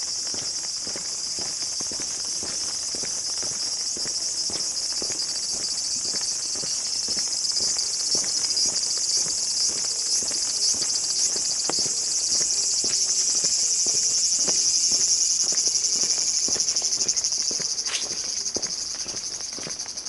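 A loud, high-pitched chorus of insects, swelling through the middle and easing near the end, over the regular footsteps of a person walking.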